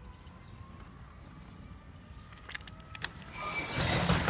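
KOVO silent diesel generator set running with a steady low hum. About three seconds in come a few clicks, then a much louder rushing engine noise.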